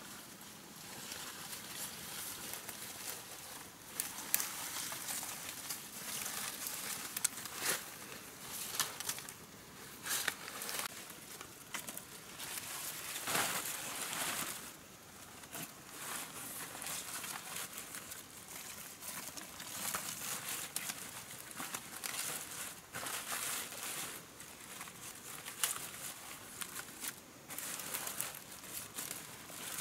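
Broad fresh leaves and stalks rustling and crinkling as a bundle of picked greens is handled and gathered, with irregular snaps and crackles.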